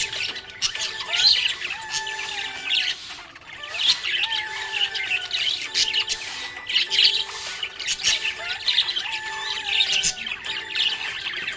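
Budgerigar chattering with a steady stream of quick, high chirps and squawks.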